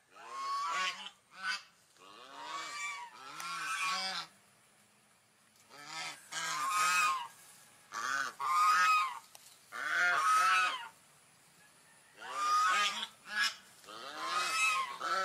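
Swan honking calls, repeated in clusters of two or three every couple of seconds with short pauses between. Each call is nasal and rises then falls in pitch.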